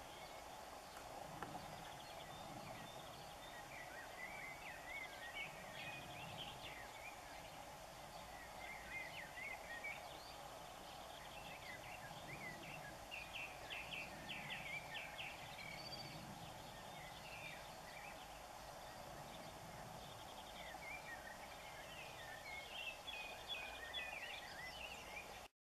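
Birds chirping and calling in short bursts over a steady background noise; the sound cuts off abruptly near the end.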